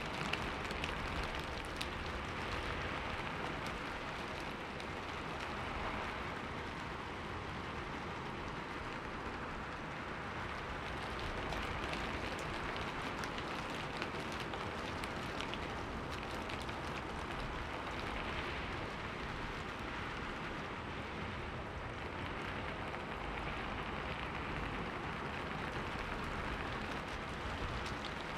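Steady rain falling on a surface, a dense hiss with individual drops pattering through it, swelling and easing gently every few seconds.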